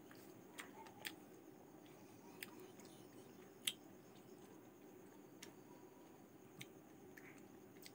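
Quiet hand-eating sounds over near silence: about seven soft, scattered clicks and ticks as fingers pick food from a plate and the mouth chews. The sharpest click comes about halfway through.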